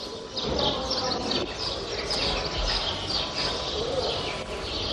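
Many small birds chirping and twittering busily, a constant chatter of short, quick chirps over a low, steady background noise.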